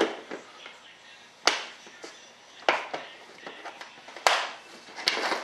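Compartmented plastic parts organizer box being handled, its lid and case giving about five sharp, separate plastic clicks and clacks.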